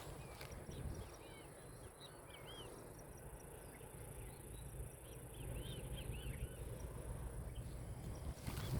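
Small birds chirping in many short, quick chirps over a steady high insect buzz and a low rumble. There is a brief knock near the end.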